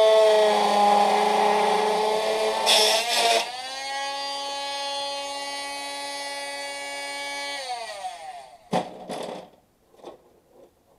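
An electric power tool's motor runs with a wavering pitch, with a brief harsh burst about three seconds in. It then runs at a steady pitch for about four seconds before it winds down with a falling whine. Two knocks follow.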